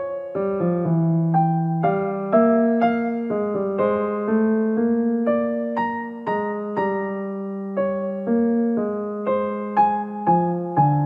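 Background music: a slow, gentle melody on piano, single notes struck about one or two a second and each left to fade.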